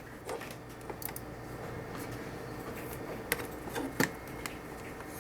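A few sharp clicks and taps of plastic hardware being handled, over a steady low hum.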